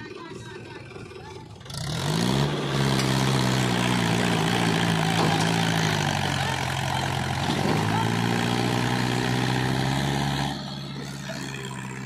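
Mahindra 475 DI tractor's diesel engine revving up about two seconds in as it hauls a trolley heaped with earth away, then running loud and steady under load. It eases off near the end.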